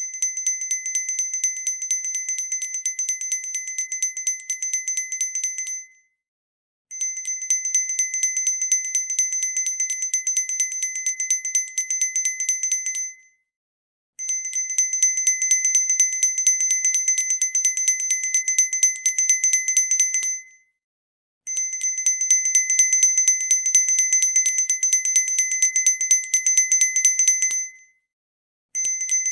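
A small brass hand bell shaken in rapid continuous ringing, high and bright, in stretches of about six seconds. It stops dead for about a second between stretches.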